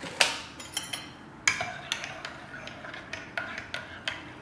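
Metal teaspoon stirring tea in a ceramic mug, clinking against its sides at an uneven pace, with a sharp clink near the start and another about a second and a half in.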